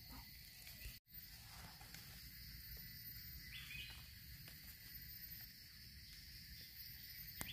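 Faint, steady high-pitched drone of insects in the forest, with a few soft clicks; the sound cuts out completely for an instant about a second in.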